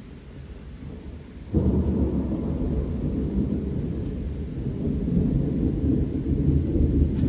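Thunder: a low rumble that suddenly grows loud about a second and a half in and keeps rolling, with rain falling.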